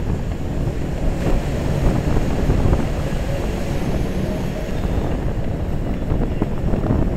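Steady wind rumbling over a GoPro's microphone from riding an electric scooter along a highway.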